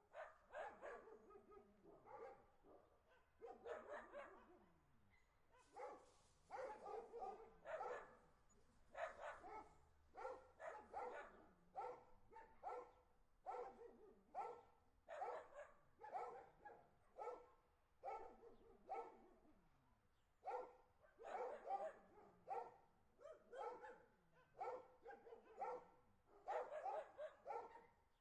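Dog barking over and over, about one to two barks a second, some in quick runs.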